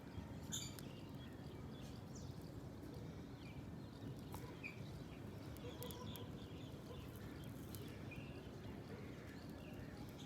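Faint steady background noise with a few scattered soft clicks and a couple of short high chirps.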